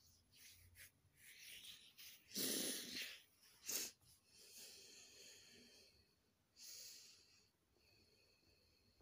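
A man breathing heavily as he cries, with two loud, sharp breaths about two and a half and nearly four seconds in, then softer breaths.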